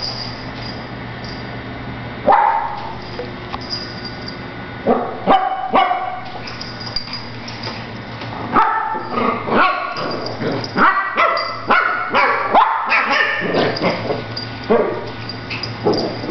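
Shih Tzu puppies barking as they play-fight. Short barks come singly at first, then in a rapid run from about eight seconds in to about thirteen, with a few more near the end.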